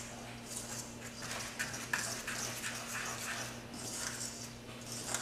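Wet gluten-free bread dough being stirred quickly in a stainless steel mixing bowl: irregular wet stirring strokes and scrapes of the utensil against the bowl. A low steady hum runs underneath.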